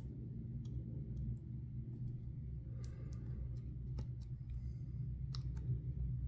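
Faint, scattered clicks and crinkles of fingers handling and peeling a small plastic adhesive dust-filter sticker, over a steady low hum.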